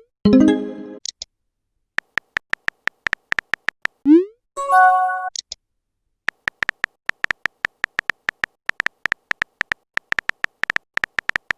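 Phone keyboard typing clicks at a quick, even pace, broken about four seconds in by a short rising pop and a bright multi-note chime of a message alert, then a short pause before the typing clicks resume.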